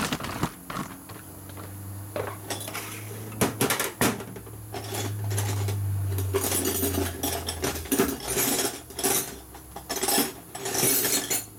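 Metal hand tools clattering and clinking, many sharp knocks in quick runs, as tools are gathered to pull the spark plugs. A steady low hum sits under the first half.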